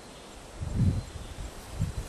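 Two low rumbling bumps on the microphone over faint outdoor background: a longer one about half a second in, and a shorter one near the end.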